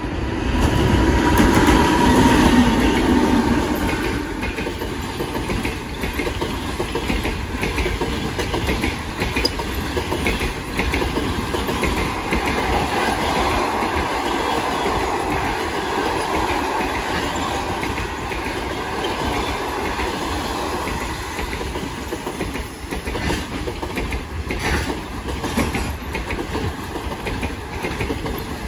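EP2K six-axle DC electric locomotive passing close by at the head of a passenger train, loudest in the first few seconds. It is followed by the steady rumble of passenger coaches rolling past, with the clickety-clack of their wheels on the rails.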